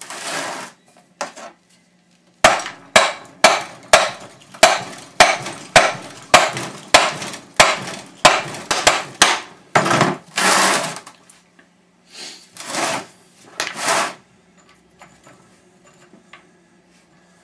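A hammer striking the cement mixer motor as a part is put back into it: a steady run of sharp blows, about two a second for several seconds, followed by a few longer, noisier knocks.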